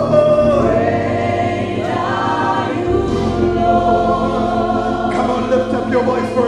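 Gospel worship singing: a group of voices sing together in harmony into microphones over a steady low accompaniment.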